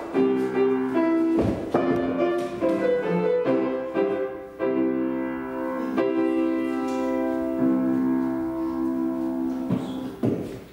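Piano accompaniment for a ballet class, playing slow, sustained chords; the music stops at the very end.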